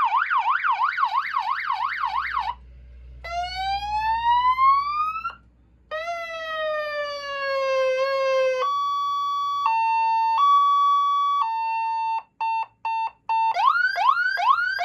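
12-volt electronic vehicle hooter sounding through its horn speaker as it steps through its siren patterns. It plays a fast up-and-down warble, a rising whoop, a slowly falling tone, a two-tone high-low alternation, a string of short beeps, and then quick rising chirps near the end.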